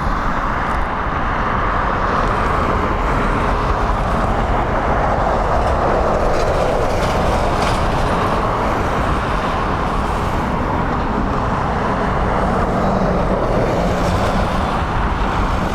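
Boeing 737 MAX 8-200's CFM LEAP-1B jet engines running as the airliner arrives, a loud steady jet roar with a low rumble underneath.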